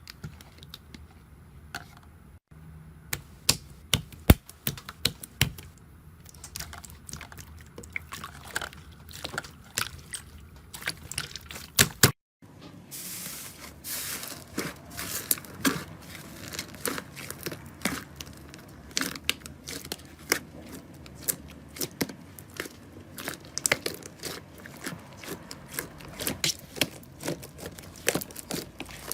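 Slime being squeezed and worked by hand: a dense string of sticky clicks, pops and crackles, with a brief break about twelve seconds in.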